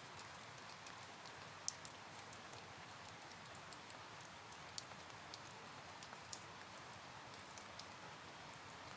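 Faint, steady rain, with scattered drops ticking sharply against a surface.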